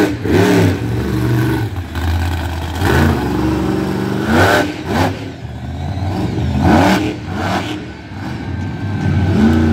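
Monster truck engine revving hard, its pitch climbing and dropping back about five times as the truck drives across the dirt and up a mound.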